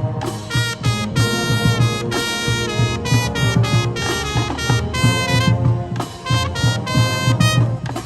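Marching band playing, its brass section sounding a run of short punched chords and a few held notes over low brass.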